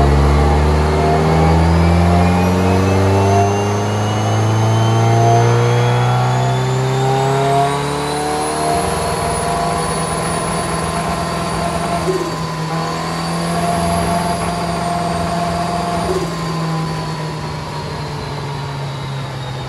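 Turbocharged BMW M42 four-cylinder in an E30, run at full throttle on a chassis dyno. The revs climb steadily for about eight seconds, then suddenly stop rising and hang at one speed while the engine misfires. The tuner reads this as some type of ignition-related issue. A high whine rises along with the revs.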